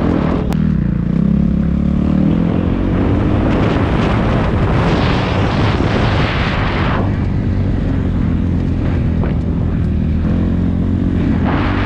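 Kawasaki KX250F four-stroke single-cylinder dirt bike engine running under load on a motocross track, its pitch rising and falling as it is ridden, with a stretch of rushing noise in the middle.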